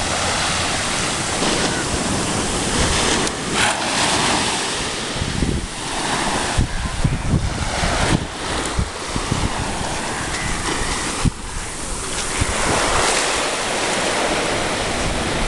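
Small waves breaking and washing up a sandy beach: a steady rush of surf that swells and eases every few seconds, with gusts of wind buffeting the microphone.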